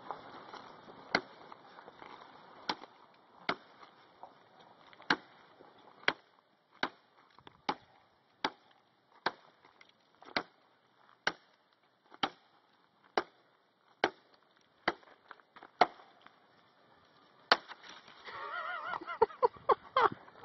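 Blade of a Gerber Bear Grylls survival parang chopping through a log of about three inches diameter: about seventeen sharp wooden chops, roughly one a second, ending when the piece comes free.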